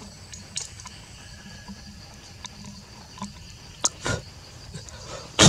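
Steady high insect chirring in tropical forest, with a few sharp clicks and thumps in the second half, the loudest just before the end.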